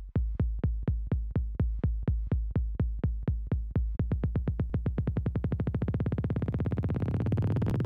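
Electronic music build-up: a repeated low drum-machine hit speeds up steadily until the hits run together into a continuous rising tone near the end.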